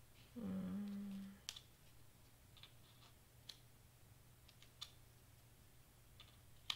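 A short hummed "mm" about half a second in, followed by scattered light clicks and taps as small cardstock pieces are handled and fitted into place.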